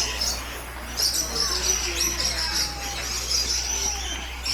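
Many small birds chirping and twittering at once in an aviary, a dense run of short high chirps that goes on almost without a break, with faint voices underneath.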